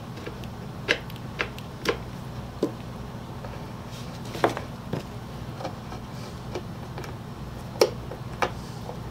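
Scattered sharp clicks and taps of small brass hardware and fingers being handled on a wooden birdhouse, about eight separate knocks at irregular intervals, over a steady low hum.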